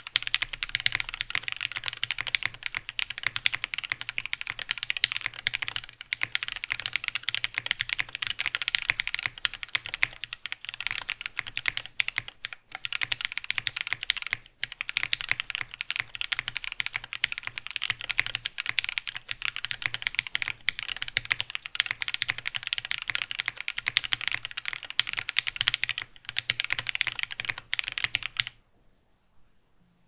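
Fast, continuous typing on a mechanical keyboard fitted with lubed Kineticlabs Hippo linear switches (nylon housings, stainless steel springs), a dense rapid clatter of keystrokes that stops near the end.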